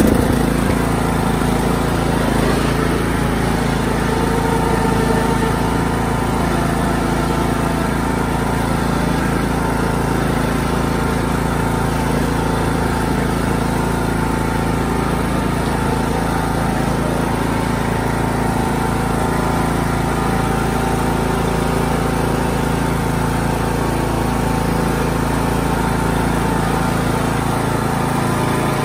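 Craftsman T110 riding mower's engine running steadily as the tractor drives along.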